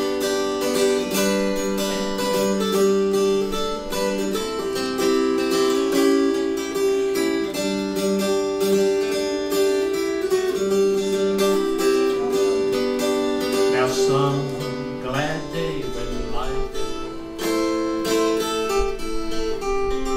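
Mountain dulcimer strummed in an instrumental passage: a picked melody rings over steady drone strings.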